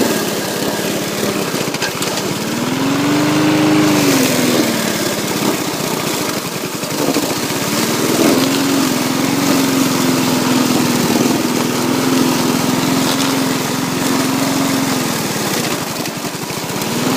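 Petrol lawn mower engine running under load. Its pitch rises and falls twice as the engine speed changes, then holds steady for several seconds.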